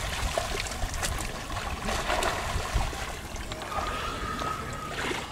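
Sea water lapping and splashing around a diver floating at the surface, over a low uneven rumble.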